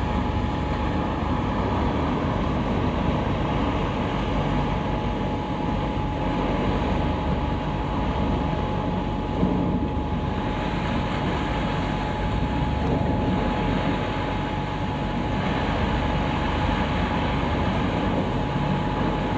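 Mobile wood chipper running continuously, chipping logs fed in by conveyor and blowing the chips out of its spout onto a pile. A dense, steady machine noise with a constant whine, and one brief knock about halfway through.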